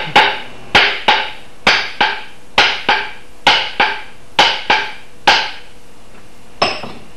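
Hammer blows driving a racing axe head further down onto its wooden handle to seat it: sharp strikes in quick pairs about a second apart, a dozen in all, then one last lighter blow near the end.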